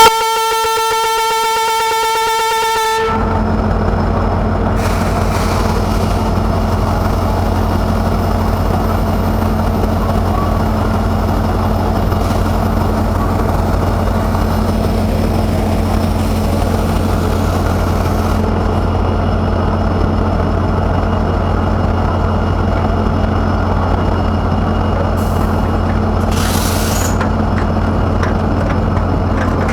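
WAP-7 electric locomotive's horn sounding one steady note for about three seconds, then the train running with a steady, loud rumble and a low hum.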